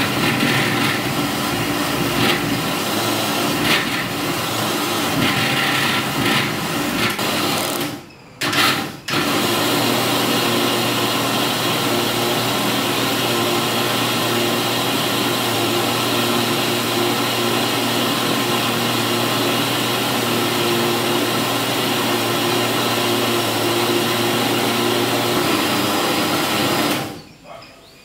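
Electric kitchen mixer grinder with a steel jar running at full speed, grinding curry leaves. It stops about 8 seconds in, gives a short pulse, restarts about a second later and runs steadily until it cuts off near the end.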